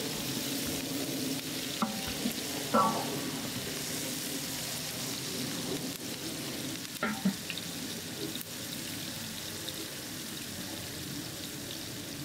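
Sliced onions and whole spices frying in oil in a large aluminium pot, with a steady sizzle. A wooden paddle stirs them, knocking against the pot a few times, about two, three and seven seconds in.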